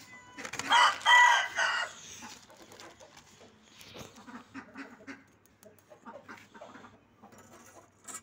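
A rooster crows once, lasting a little over a second, about a second in. After it come faint clucks and scattered light knocks.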